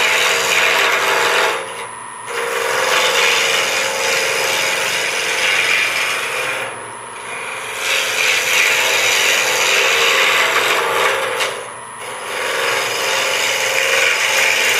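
A spindle gouge cutting a wooden pen blank spinning on a wood lathe at about 1300 RPM, knocking the square edges off to rough it round. The result is a loud, rough scraping of the tool on the wood, which drops away briefly three times, about 2, 7 and 12 seconds in, as the gouge comes off the wood.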